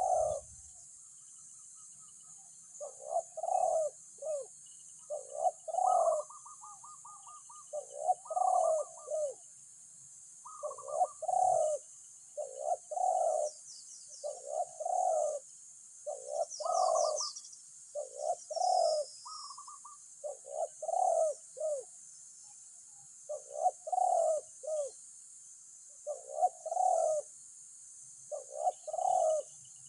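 Spotted doves cooing over and over, one phrase after another, with a few short higher chirps in between.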